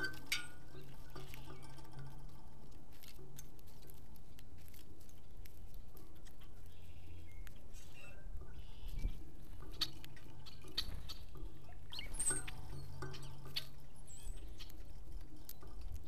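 Scattered light taps and scratches from small animals foraging, with a short high bird chirp about twelve seconds in, over a low steady hum.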